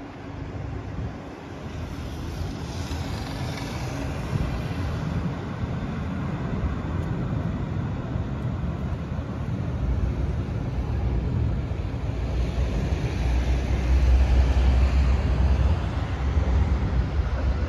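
Siemens Combino (NF8U) low-floor light-rail trams running on the tunnel ramp. One passes close in the first few seconds, then a second approaches on the other track, its low rumble and wheel hiss building to loudest about three quarters of the way through. Wind noise on the microphone.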